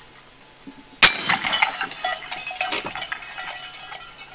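A single sharp shot from an AirForce Texan big-bore air rifle about a second in, the loudest sound, followed by a run of irregular clanks and knocks, some with a short ringing tone.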